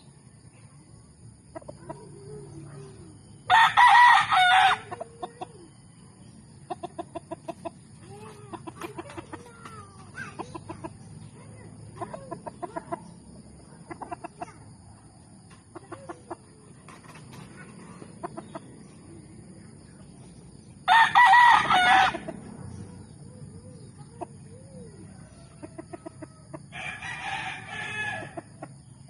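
Gamefowl rooster crowing: two loud crows about four and twenty-one seconds in and a weaker one near the end. In between come runs of rapid clucking and low calls from the chickens.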